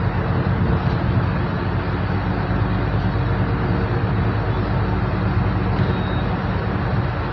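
Solaris Urbino 12 IV city bus driving along a street, heard from inside at the front: its engine runs at a steady note over tyre and road noise.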